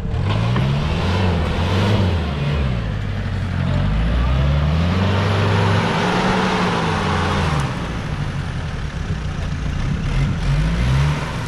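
Modified off-road jeep's engine being driven hard, its revs rising and falling several times, with one long rise and fall in the middle, under a loud rushing noise.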